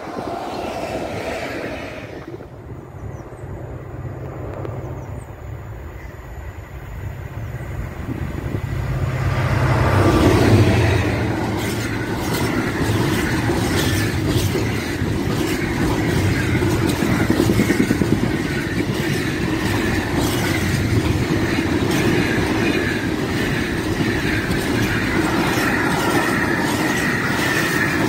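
A freight train running past on the line: a low rumble that builds to its loudest about ten seconds in, then the steady rumble and clatter of container and flat wagons rolling by, with a run of wheel clicks over the rail joints.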